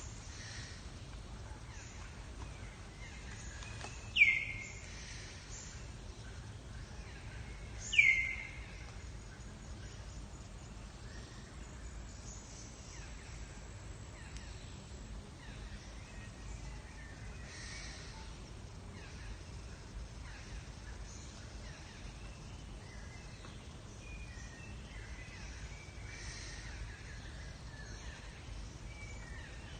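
Two short, sharp animal calls about four seconds apart, each dropping quickly in pitch, over a steady outdoor background with faint bird and insect chirps.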